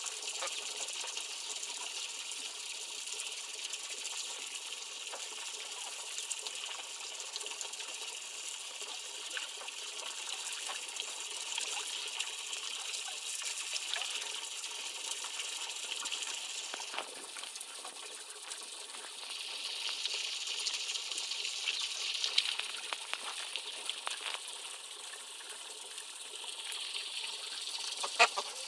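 A thin stream of water trickling and splashing steadily into a garden pond, with a bright tinkling patter. Ducks splash and dabble at the surface, louder in a spell about two-thirds of the way through and again near the end.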